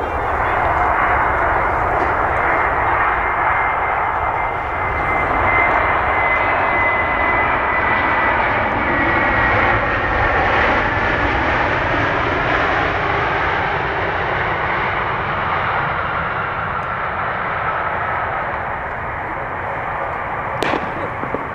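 Airbus A321neo's Pratt & Whitney geared turbofan engines as the airliner lands and rolls out down the runway: a loud, steady jet rush with a thin high whine that slowly falls in pitch as it passes and slows. A single sharp click sounds near the end.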